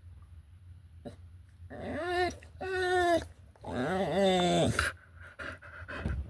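A dog making three drawn-out whining, vocal calls, the last one longer and wavering up and down in pitch.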